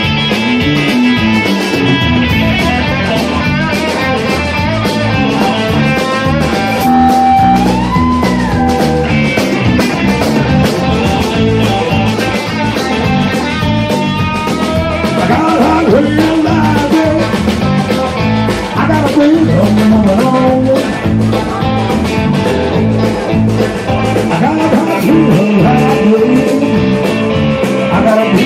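Live blues band: a thinline Telecaster-style electric guitar plays through an amp over a drum kit, with a bent note rising and falling about eight seconds in.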